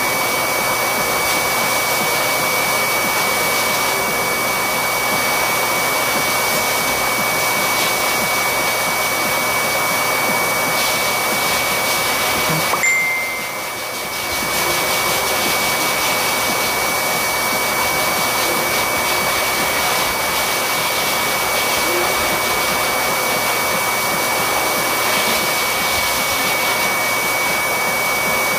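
A grooming shop's electric blower motor runs continuously: a steady rush of air with a steady high whine, dipping briefly about halfway through before coming back up.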